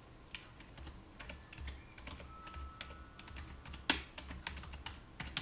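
Typing on a computer keyboard: a quick, irregular run of key clicks, with one louder key strike about four seconds in.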